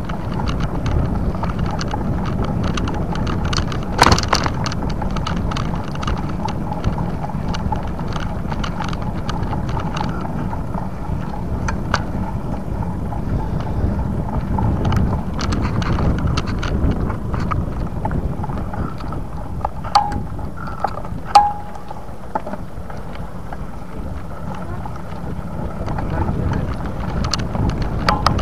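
Bicycle riding along a path, with a steady rumble of wind buffeting the microphone and tyre and road noise. Frequent small clicks and rattles run through it, and sharper knocks come about four seconds in and about two-thirds of the way through.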